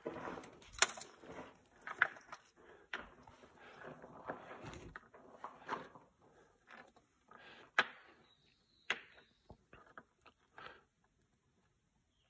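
Rocks clacking and scraping against each other as stones are picked up and stacked by hand: an irregular string of sharp knocks and clicks with short scrapes between them.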